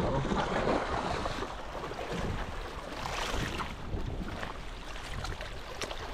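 Wind on the microphone over washing sea water, a steady rushing noise that swells briefly in the middle, with a few faint clicks.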